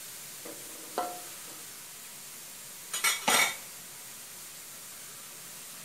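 Metal spatula clinking and scraping against a wok while stirring simmering pork belly: a light clink, then a sharper ringing clink about a second in, then a louder scrape about three seconds in. A faint steady hiss from the simmering pan runs underneath.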